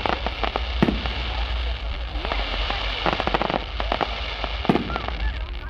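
Fireworks display: dense crackling, with two louder bangs, one about a second in and one near the end.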